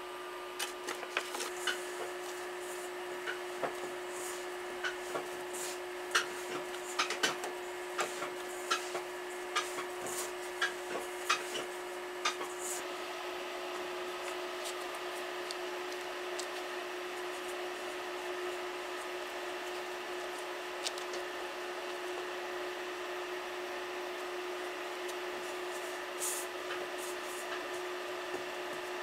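Scattered light clicks and taps of hands, dough and a stainless-steel mixing bowl being handled, thick for the first dozen seconds and then only now and then, over a steady mechanical hum.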